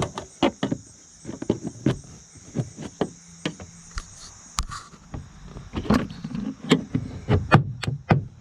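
Plastic retaining clips of a 2007 Honda Accord's rear door trim panel popping loose as a panel removal tool pries around the panel: a run of sharp, irregular clicks and knocks, busiest and loudest near the end.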